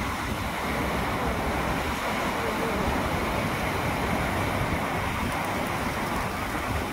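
Steady rush of the Ara Waterfall, a man-made waterfall, pouring down over the rocks into the canal, with uneven gusts of wind on the microphone.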